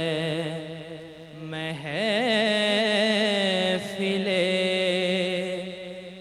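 A young man's solo voice reciting a naat, singing long held notes that waver and bend in pitch, with short breaks about a second in and near the end.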